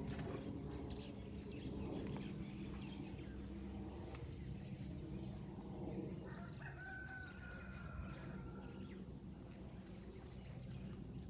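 A rooster crowing once, faintly: a single long, held call a little past halfway through.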